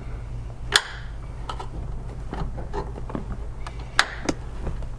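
A small screwdriver clicking and scraping against the metal retaining plate at the end of a rear-window gas strut while prying the plate out to free the strut. There are several sharp metallic clicks, the loudest about a second in and about four seconds in, over a steady low hum.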